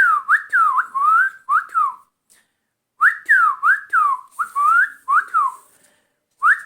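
A person whistling an imitation of the call of a brown, crested laughingthrush-like Himalayan bird. Quick notes slide down and up, repeated in three phrases of about two seconds with short pauses between them.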